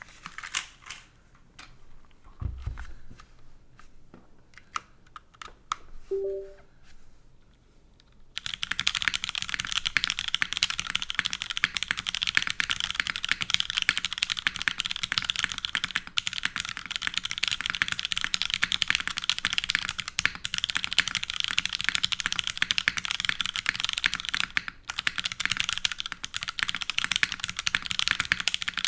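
Mechanical keyboard with vintage Cherry MX Black linear switches, leaf-swapped and filmed, under GMK keycaps on a full aluminium plate, being typed on. A few scattered keystrokes at first, then fast, continuous typing from about eight seconds in.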